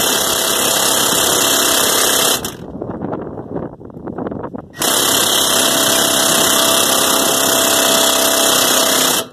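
Cordless electric impact wrench hammering a lug nut down over a replacement wheel stud, drawing the stud into the wheel hub without a stud installer tool. It runs twice: a first run of about two and a half seconds, a pause of about two seconds with a few light knocks, then a second run of about four and a half seconds that stops abruptly near the end.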